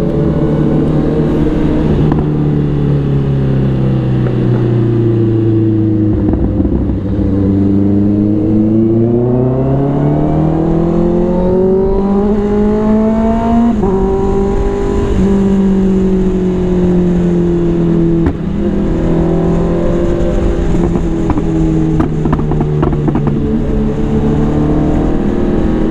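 Big-bike motorcycle engine under way: the revs fall for several seconds, climb again, dip suddenly about halfway through as it shifts up a gear, then hold fairly steady.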